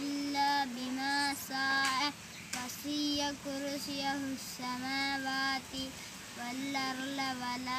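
A nine-year-old boy chanting Quran recitation in Arabic, holding long melodic notes with short breaks for breath between phrases.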